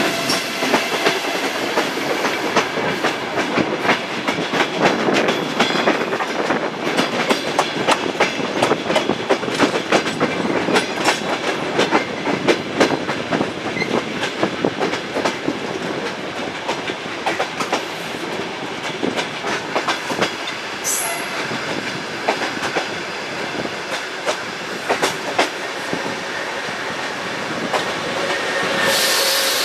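Wheels of a suburban train clicking over rail joints and points, with steady running noise, heard from inside the carriage. Near the end a 2TE116 diesel locomotive passing on the adjacent track comes close and the sound grows louder.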